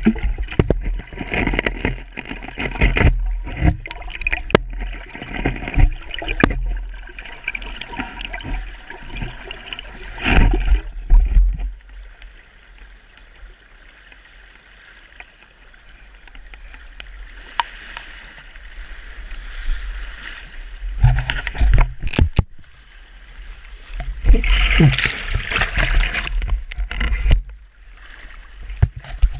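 Fast river current rushing and splashing, with repeated knocks, rubbing and low rumbles from the camera being moved and handled; the handling noise drops away for a few seconds in the middle.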